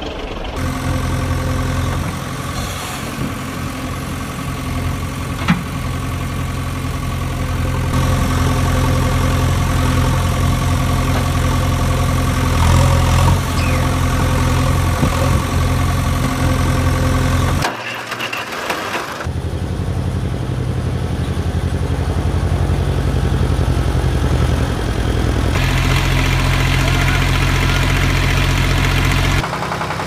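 Heavy diesel engine idling steadily, a low, even engine sound added as a sound effect. It breaks off briefly about two-thirds of the way through where the recording is cut, then runs on.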